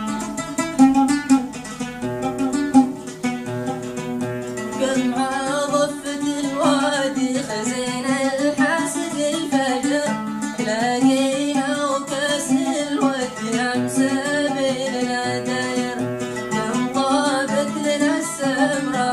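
Plucked string instrument playing a melody, with a voice singing long, wavering notes over it from about five seconds in.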